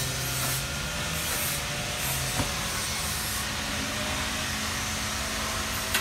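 Forklift engine running steadily under a continuous hiss as it works a heavy load into a box truck, with a light knock about two seconds in and another near the end.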